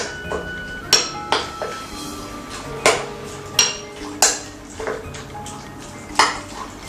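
A utensil clinking against a glass bowl while mixing sliced chicken with egg white and cornstarch: about seven sharp clinks at an uneven pace.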